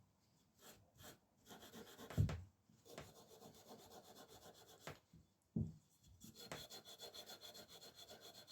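Cloth rubbing a machined metal bicycle seat post clean with degreaser in circular strokes: a quiet, uneven scrubbing, with two soft bumps about two and five and a half seconds in.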